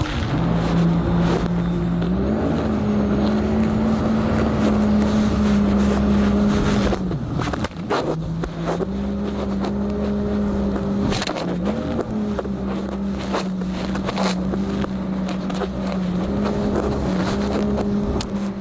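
Jet ski engine running under way, its drone stepping up and down in pitch with the throttle. It drops off sharply about halfway through, then picks back up. A steady rushing noise and occasional sharp knocks run through it.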